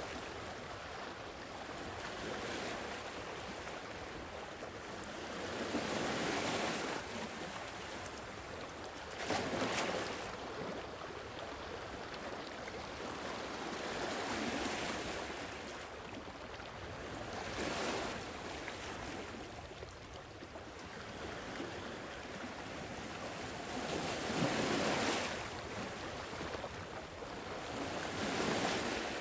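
Sea waves washing onto the shore, each one swelling and fading away every few seconds.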